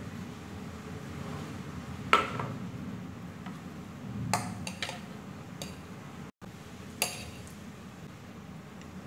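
Tableware clinks: a drinking glass set down with a sharp ringing clink about two seconds in, then a metal fork clinking against a plate several times as noodles are picked up. A low steady hum runs underneath.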